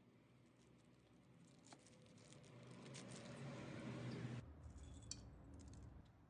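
Faint kitchen handling noise: a rustling, crackling hiss that builds for about four seconds and stops suddenly, then a few light clicks.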